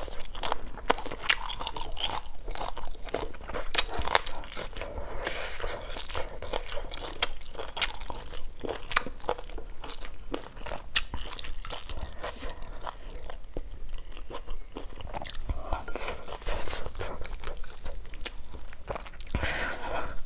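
A person chewing crisp, crunchy stir-fried food close to a clip-on microphone: a steady run of sharp crunches.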